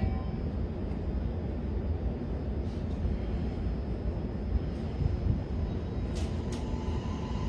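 Commuter train running, heard from inside the carriage: a steady low rumble with a couple of short sharp clicks about six seconds in.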